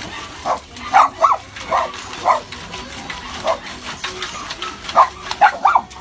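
Dog barking: about ten short, sharp barks in irregular bunches, with water splashing in a metal bowl as the dogs paw at it.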